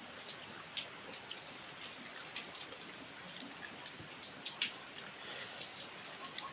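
Steady rain falling, a soft even hiss with scattered light drips and taps; one sharper tap about four and a half seconds in.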